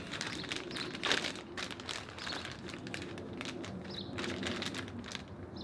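Plastic bag crinkling and rustling around a Rubik's Cube as it is turned quickly inside the bag: a dense, uneven run of crackles.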